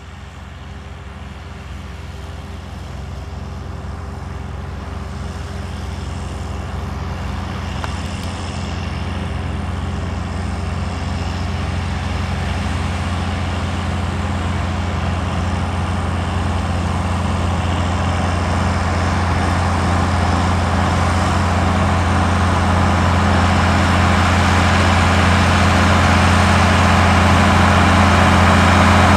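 John Deere 6030's turbocharged 531 cubic inch six-cylinder diesel running steadily under load as it pulls a plow, growing louder throughout as the tractor comes closer.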